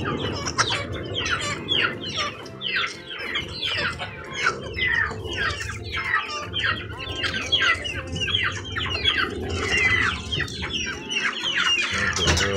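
A flock of young chickens peeping and chirping, short falling high calls overlapping several times a second, over a low steady hum.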